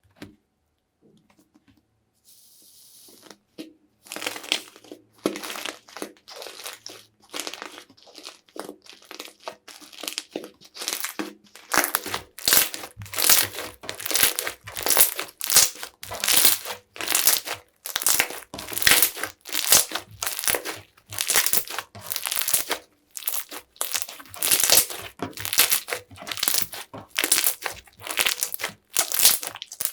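Slime being pressed and squished by hand in a run of repeated strokes, about one to two a second, starting about four seconds in and getting louder about halfway through.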